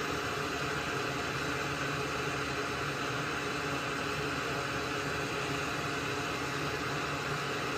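Steady fan-like hiss with a faint hum, even in level with no distinct clicks or strokes.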